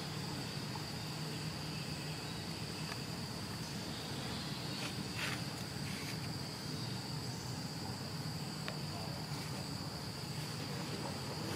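Steady chorus of insects, a continuous high-pitched trill that holds unbroken, over a low steady background rumble.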